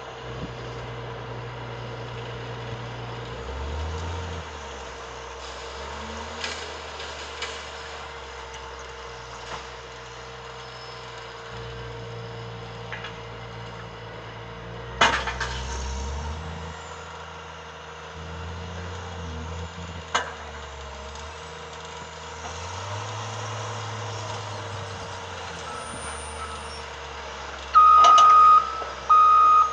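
Heavy diesel machinery working at a log truck unloading, its engine running and revving up and down. There is a sharp knock about halfway through and another a few seconds later. Near the end a reversing alarm starts beeping loudly.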